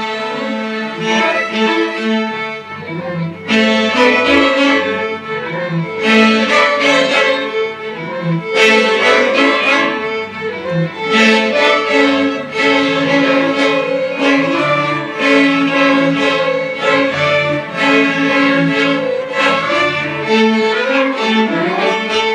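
High school string orchestra of violins and cellos playing a piece, with sustained bowed chords and accented strokes every couple of seconds.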